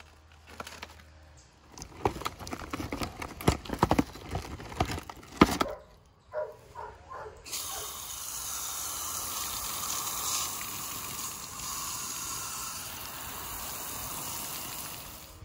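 Sharp knocks and cracks of the tree branch and broken asphalt shingles being handled on the mock roof, then from about halfway a steady hiss of water sprayed from a hose onto the shingles and into the hole.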